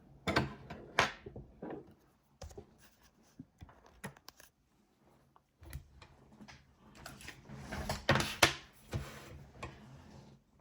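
Irregular handling sounds of objects being moved about at a bench: scattered clicks, taps and rustles, with a louder burst of rubbing and clicking about eight seconds in.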